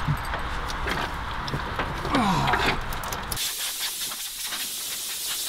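Compressed air hissing from an air blow gun, blowing debris out of an engine bay, with scattered clicks and a short falling tone in the first half. A little over halfway through it changes to a sharper, higher blast.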